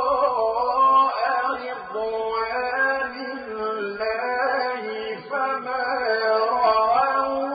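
A man's voice reciting the Qur'an in slow, melodic chant, holding long, ornamented notes that waver up and down in pitch, with two short breaks between phrases.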